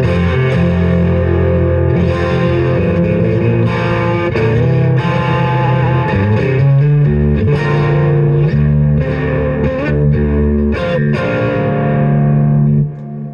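Electric guitar with a Guyker Wilkinson-style vintage tremolo bridge and locking tuners, played loud: held chords and notes that change every second or so, stopping shortly before the end. It is being played to test whether the new bridge holds its tuning.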